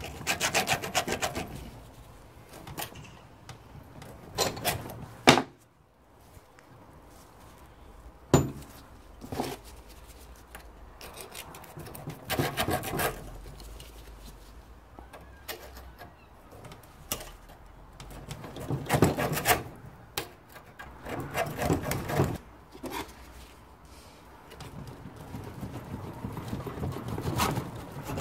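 Irregular metal clunks, knocks and scraping from hand tools working on a rusty Classic Mini lower suspension arm clamped in a bench vise, as the nut on the arm's pin is undone. Two sharp knocks come about five and eight seconds in.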